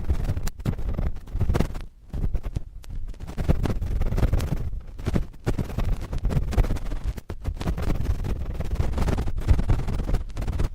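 Cotton swabs scratching and rubbing against a microphone, a dense, irregular, close-up rustling with a few brief pauses.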